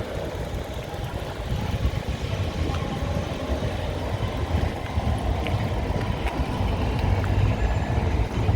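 Low, steady engine rumble mixed with outdoor noise.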